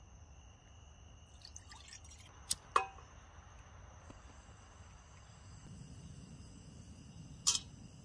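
Night insects trilling steadily on two high tones, with a few sharp clicks and clinks: two close together about two and a half seconds in and one near the end.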